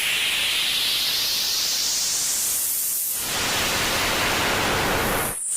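Television static: a harsh, steady hiss of white noise whose brightest part sweeps upward in pitch. About three seconds in it shifts to a fuller, deeper rush, then briefly drops out near the end.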